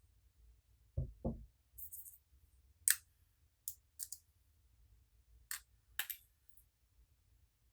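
Slime ASMR handling sounds: two soft low thuds about a second in, then a scattered run of crisp, sharp clicks and crackles.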